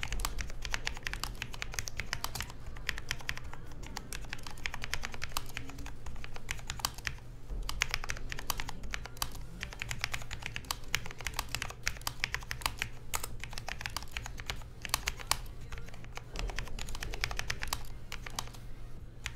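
Typing on a Cooler Master SK630 low-profile mechanical keyboard with Cherry MX Low Profile Red linear switches: a fast, steady run of keystroke clicks.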